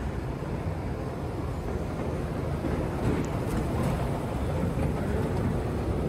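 Steady low rumble of a large airport terminal hall, with a few faint clicks a few seconds in.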